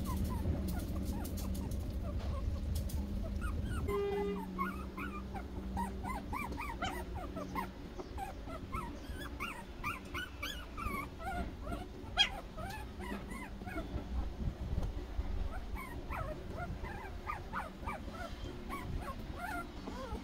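Newborn puppies, eyes still closed, squeaking and whimpering in many short, high cries that rise and fall while they sleep in a pile. A low rumble fades out about four seconds in, and one sharp tick sounds about twelve seconds in.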